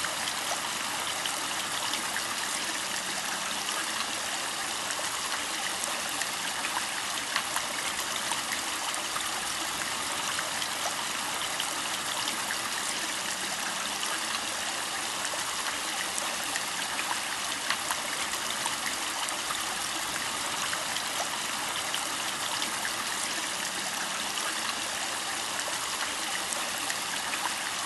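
Running water trickling steadily in a backyard pond, with small drips and splashes scattered through it.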